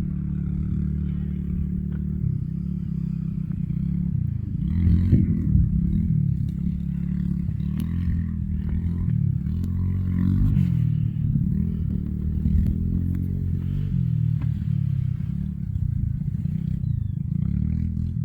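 An engine running steadily, its pitch rising and falling a little, with some light clatter over it.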